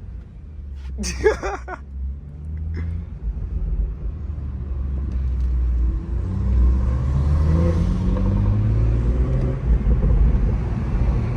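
BMW M340i's turbocharged 3.0-litre inline-six, fitted with an aftermarket intake, accelerating hard. A deep rumble builds steadily as the engine note climbs in pitch several times over.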